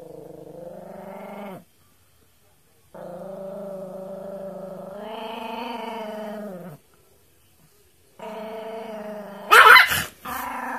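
Yorkshire terrier growling in three long, steady growls with short silent breaks between them, guarding food: food aggression. Near the end comes a sudden, much louder snarling outburst as she lunges.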